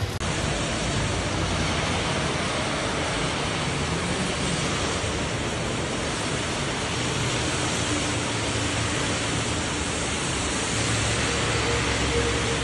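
Rain falling steadily on a wet paved street: an even, unbroken hiss.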